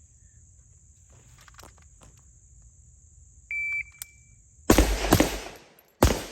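Shot timer beeps once with a short high tone, then a 7.62x39 AR-pattern rifle fires three quick shots, the first two close together, in a rapid target-transition string.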